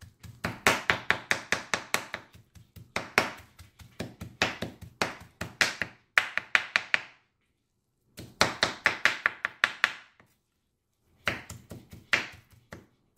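Chef's knife rapidly chopping grilled striped bass with its skin and grilled eggplant on a wooden cutting board: quick runs of knocks, about five a second, broken by two short pauses.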